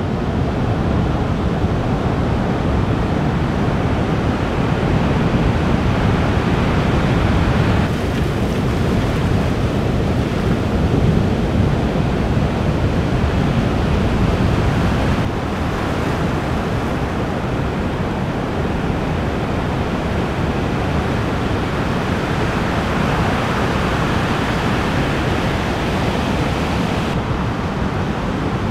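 Ocean surf breaking and washing, a continuous rush of noise, with wind buffeting the microphone. The level shifts slightly a few times.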